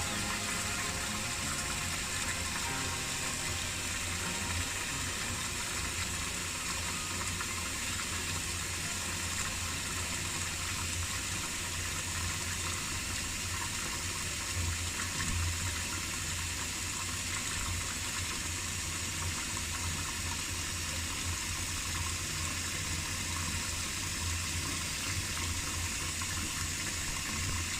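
Water running steadily from a faucet into a sink.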